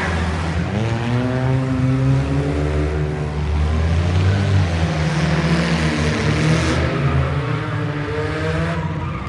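Race cars' engines running hard in a heat race, several at once, with one engine climbing in pitch as it accelerates about half a second in and again later on.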